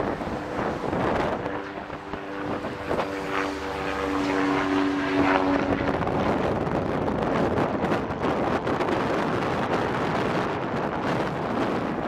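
Cessna 337G Skymaster's twin push-pull piston engines and propellers running in flight, heard through heavy wind noise on the microphone. A steady engine-and-propeller tone stands out from about a second and a half in until about six seconds in, then the gusty rush of wind takes over.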